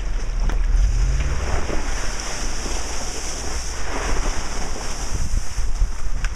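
Range Rover 4.6 V8 wading through a deep muddy puddle: water rushing and splashing along the bodywork, with wind buffeting the microphone over a low engine rumble. The engine note rises briefly about a second in.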